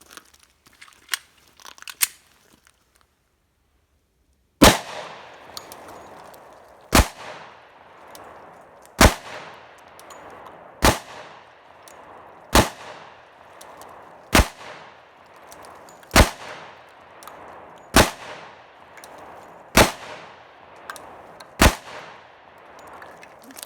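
Glock 29 subcompact 10mm pistol fired ten times in slow, steady succession, about one shot every two seconds, each shot trailing off in a short ring of echo. Two sharp clicks come before the shooting starts.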